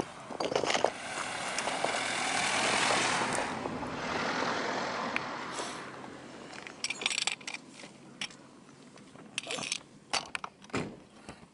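A rushing noise swells and fades over the first few seconds, then irregular crunching clicks, like footsteps on gravel, until the end.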